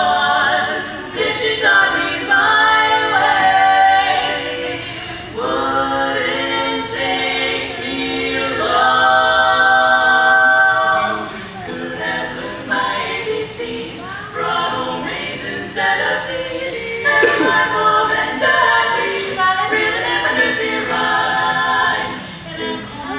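Women's barbershop quartet singing a cappella in close four-part harmony, with a long-held chord near the middle.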